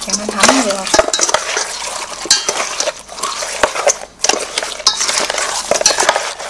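Fish being mixed with marinade in a bowl: irregular scrapes, clinks and wet stirring against the bowl.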